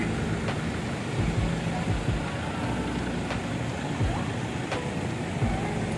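Steady outdoor traffic noise with irregular low thumps.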